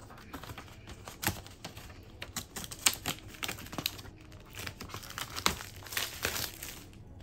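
Plastic crinkling and sharp clicking as rigid plastic accessory pieces are handled, with the loudest clicks about three and five and a half seconds in.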